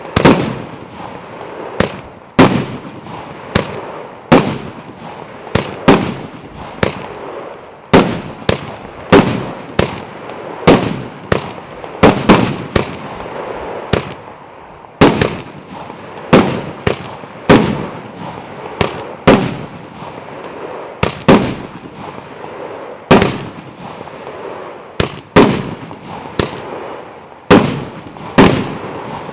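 A 100-shot, 1.25-inch consumer fireworks cake (battery) firing shot after shot: sharp bangs about one to two a second, with a hiss between them.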